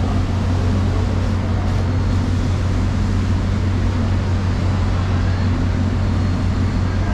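Steady low mechanical hum with a constant drone underneath, unchanging throughout.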